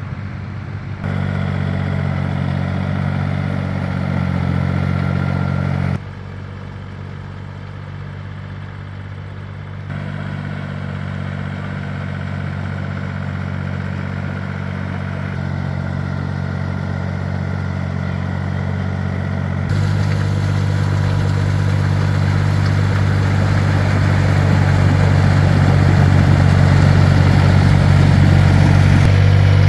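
Two-wheel walking tractor's engine running steadily. The sound jumps abruptly several times and is louder over the last ten seconds.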